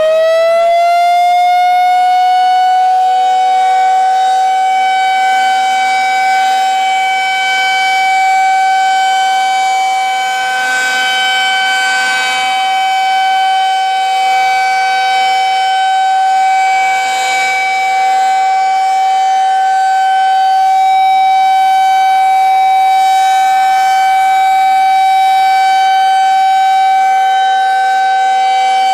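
Federal Signal 2001 electromechanical tornado siren finishing its wind-up, its pitch rising for the first couple of seconds, then holding one steady tone at full pitch: the Alert signal of a siren test.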